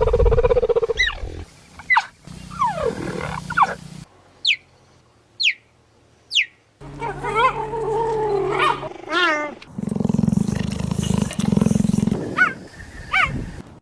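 Big-cat calls from cheetah and cougar recordings: a low growl, then three short high chirps that fall in pitch, then wavering yowls and a long low growl, with more chirps near the end.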